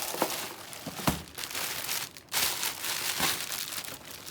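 Tissue paper rustling and crinkling as it is handled and unwrapped, with sharp crackles throughout and a short lull a little past the middle.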